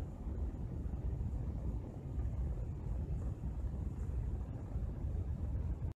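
Steady low rumbling outdoor noise with no distinct events.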